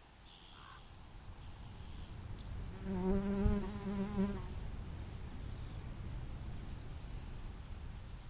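A flying insect buzzes past, its hum swelling to loudest about three to four seconds in and then fading. Crickets chirp faintly in a steady rhythm, about three chirps a second.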